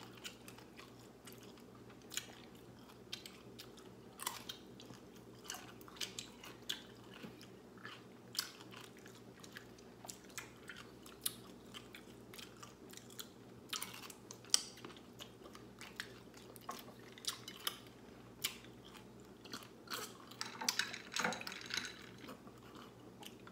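Close-miked eating sounds: pickles being bitten and chewed, with irregular crunches and wet mouth clicks over a faint steady hum.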